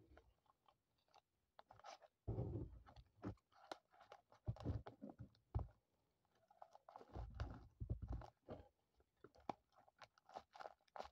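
Faint crinkling and rustling of paper and plastic tape as hands handle a small taped paper craft and fit a paper cover onto it. There are irregular crackles throughout, with a couple of heavier, lower rustling patches where the craft is pressed and bumped.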